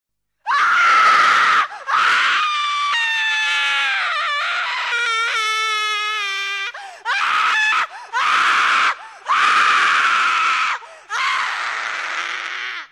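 A string of loud human screams, about six in a row with short gaps between them; the second is a long pitched wail that wavers and slowly falls in pitch.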